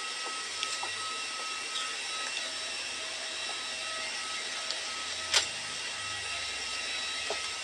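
Steady rushing cabin noise of a jet airliner, with a single sharp click about five seconds in.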